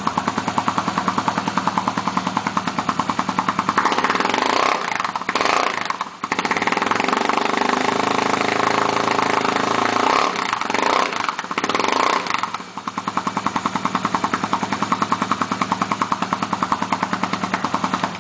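Honda XR250 Tornado's single-cylinder four-stroke engine running through a Pro Tork 788 aftermarket muffler, idling with an even, pulsing beat. It is revved several times between about four and thirteen seconds in, then settles back to idle.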